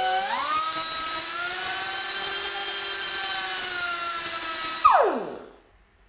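End of an 8 mm steel shaft, spun in a cordless drill, ground against a small high-speed cut-off wheel to chamfer it: a loud, steady, high-pitched grinding hiss over the whine of the motors. About five seconds in the grinding stops and the tool winds down with a falling whine.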